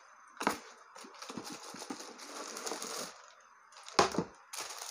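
A headphone box being opened by hand: cardboard packaging scraping and rustling with small ticks, with two sharp knocks, one about half a second in and a louder one near the end. Plastic wrapping starts to crinkle in the last half second.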